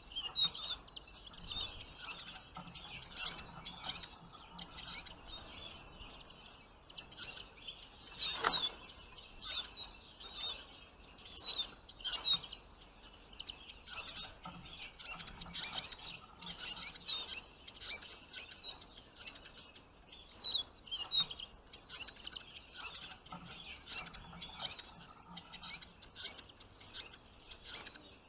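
Small finches chirping and calling over and over in many short, high notes, with one louder, closer call about eight seconds in.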